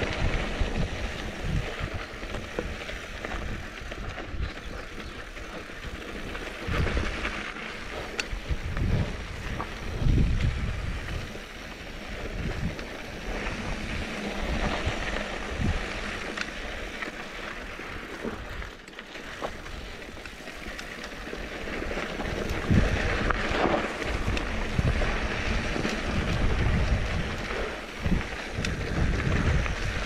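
Mountain bike riding down a dry dirt singletrack: wind buffeting the microphone in uneven gusts over the hiss and crunch of the tyres on dirt and gravel, with a few faint clicks and rattles from the bike.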